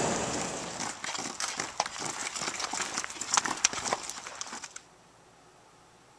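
Horses' hooves clopping on a paved road: irregular sharp clicks and knocks that cut off abruptly near the end.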